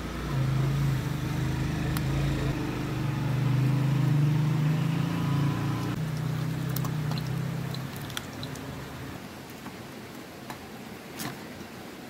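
Samosas frying in a pan of hot oil, with a light sizzle and a few sharp pops. Under it a low rumble swells and then fades out about eight seconds in.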